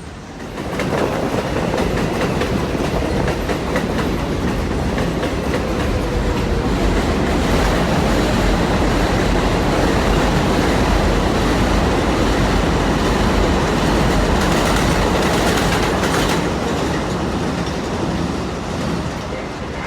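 Kawasaki R188 subway train running on the rails. The sound rises sharply about a second in, holds loud and steady, and eases off near the end.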